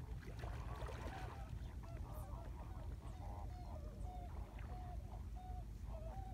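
Wind rumbling on the microphone. From about two seconds in, a series of short notes at the same pitch repeats irregularly, a few times a second.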